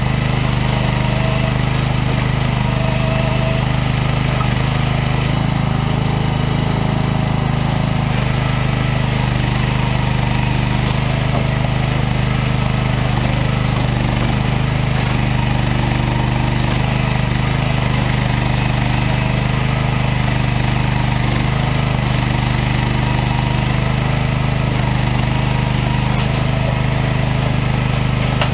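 A Regon R1 firewood processor and a JCB 2CX backhoe loader running together, a steady, unbroken engine hum with no clear knocks or changes.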